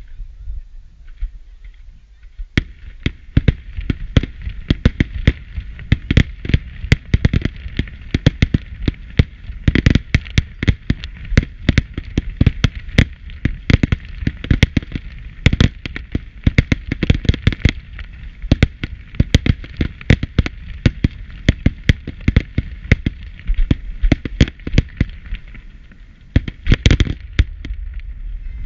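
Professional fireworks display: a rapid barrage of firework bangs, several a second, over a continuous hiss, starting about two and a half seconds in.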